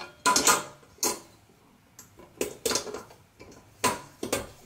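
Stainless steel mixing bowl clinking and knocking against the metal bowl-lift arms of a KitchenAid stand mixer as its tabs are fitted over the pins, in several separate sharp clanks.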